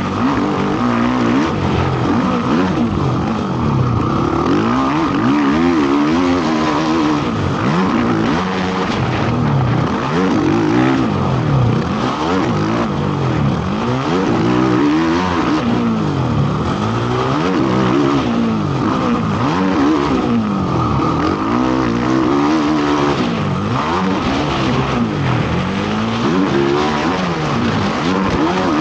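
Motocross racing quad's engine being ridden hard around a track, its revs climbing and dropping over and over every second or two as the rider works the throttle.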